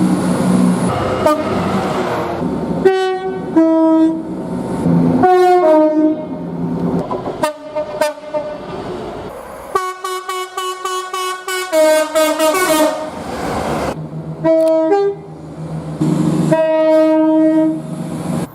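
A run of train horn blasts from different trains, cut together one after another: chord-sounding multi-note air horns give short toots and longer blasts, and the pitch changes abruptly every second or two.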